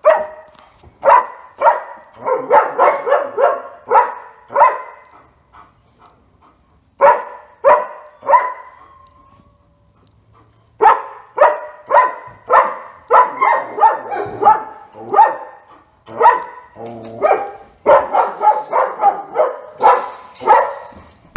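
German Shepherd dog barking repeatedly in quick bouts of sharp barks, with lulls of a second or two between bouts.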